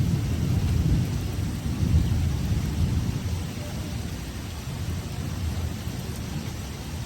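Thunder rolling over steady rain in a severe thunderstorm. The deep rumble is strongest in the first couple of seconds and then eases off.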